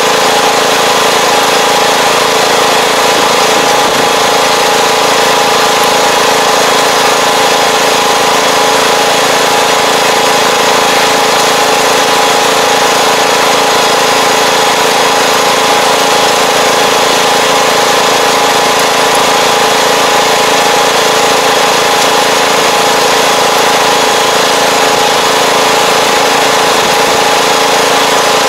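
Tractor engine running steadily as the tractor pulls a rear-mounted fertilizer applicator across a field.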